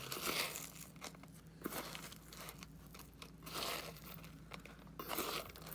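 Fingers crumbling and mixing crushed dry kibble with soft treat in a stainless steel bowl: faint crunching and rustling in several short bursts.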